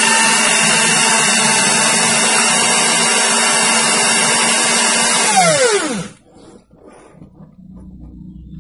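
Electric hand drill running steadily, spinning a gun barrel's muzzle against coarse sandpaper to crown it. About five and a half seconds in the drill is released and its motor winds down to a stop, its pitch falling.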